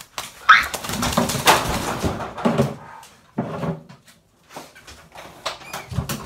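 A wet puppy shaking itself off, a spraying, flapping burst of about two seconds, followed by shorter scuffling bursts.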